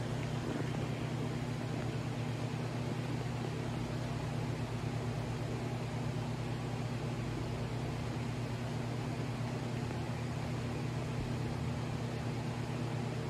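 Steady low electrical hum with an even hiss, unchanging throughout: room background noise rather than any distinct event.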